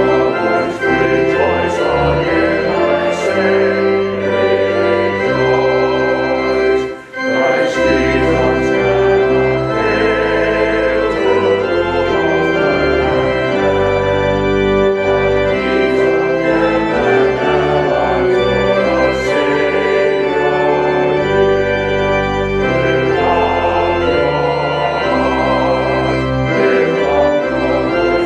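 Church organ playing a hymn in sustained chords that change every second or two.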